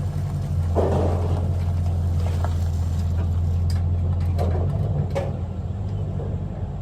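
A vehicle engine running with a steady low hum that swells louder for a few seconds before settling back, with a few light clicks over it.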